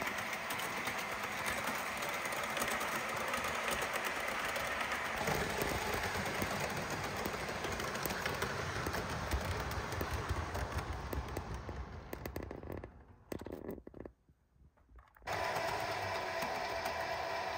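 HO scale model trains running along the track: the small electric motors whirring and the metal wheels clicking over the rails. About three-quarters of the way through the sound drops to near silence for about two seconds, then resumes with a steadier, higher whine.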